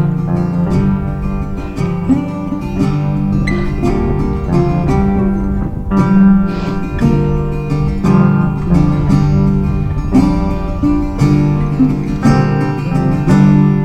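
Acoustic guitar music, strummed and picked in a steady rhythm.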